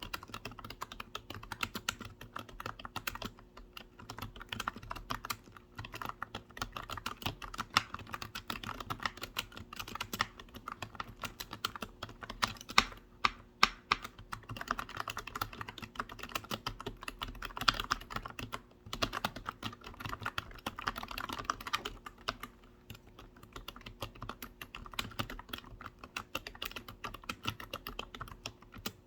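Computer keyboard being typed on in a fast, continuous patter of soft key clicks, with a few sharper, louder keystrokes about halfway through.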